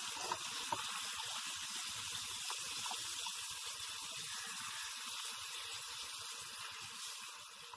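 Masala-coated pomfret pieces shallow-frying in oil on a low flame: a steady sizzle with a couple of small pops about half a second in, easing off slightly near the end.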